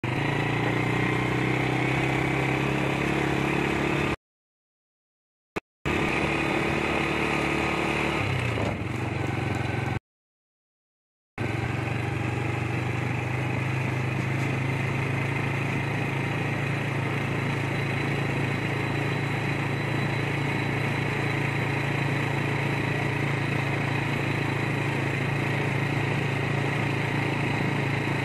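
Motorcycle engine running steadily while riding along a road. The sound cuts out completely twice, about four seconds in and again about ten seconds in.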